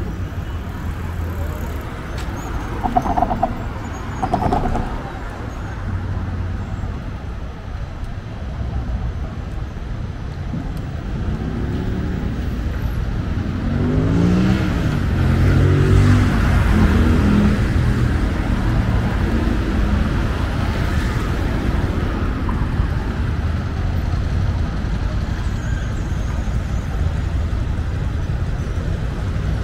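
City street traffic: road vehicles running steadily, swelling about halfway through as one passes close.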